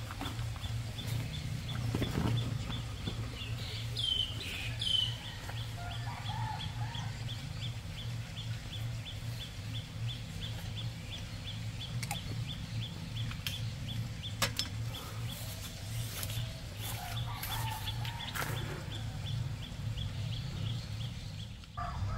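Outdoor ambience: birds calling now and then over a steady low hum, with a few sharp light clicks.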